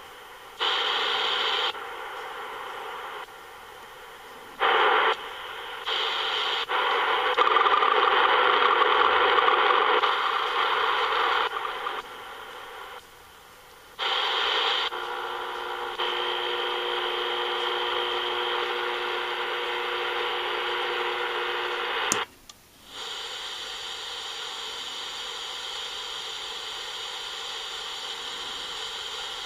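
Static hiss from the small speaker of a Vogurtime AM/FM radio kit as its tuning dial is turned, the noise jumping up and down in level, with steady whining tones through the middle and a sharp click about three quarters of the way through. No station comes in, which the builder puts down to the shop being too full of RF noise makers.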